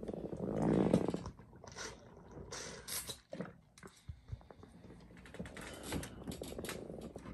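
Rustling handling noise with many scattered small clicks and knocks, loudest in the first second or so.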